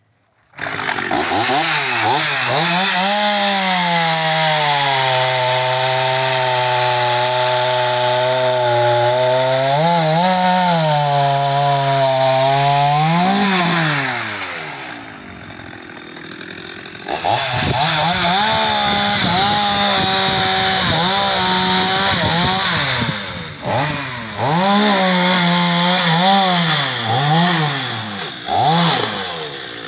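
Stihl MS 250 two-stroke chainsaw with a short bar, cutting a thick tree trunk at full throttle, its pitch dipping and rising as the chain bites into the wood. About halfway through it drops to idle for a couple of seconds, then revs up and cuts again, falling back to idle near the end.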